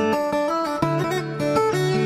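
Background music led by a plucked string instrument, playing a melody of short notes.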